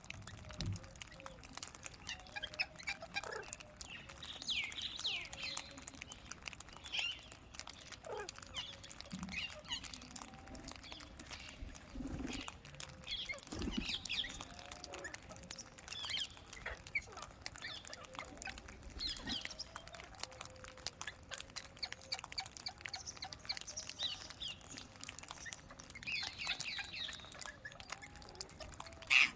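Parrots chirping off and on, with scattered short high calls every second or few seconds.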